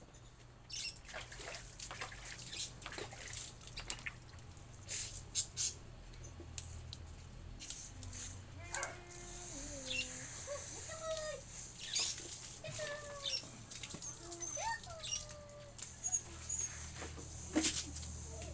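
Water splashing and a garden hose spraying onto a husky puppy's wet coat as it is bathed, with scattered knocks and splashes from handling. Several short animal calls come in around the middle.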